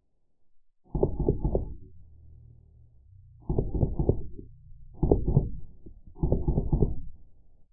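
Four short full-auto bursts from Drozd Blackbird CO2 BB guns, slowed down so that each burst is a rapid cluster of deep, low thuds. The bursts come about a second in, then at roughly three and a half, five and six seconds.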